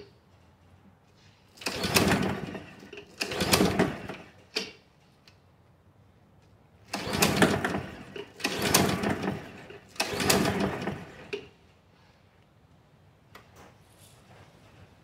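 Honda push mower being pull-started: five pulls of the recoil starter, each turning the engine over for about a second before it dies away without catching.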